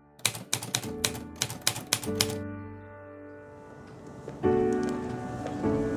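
A quick run of about eight sharp clicks, like typewriter keys, over soft music during the first two seconds. A strummed chord comes in about halfway through, with another near the end.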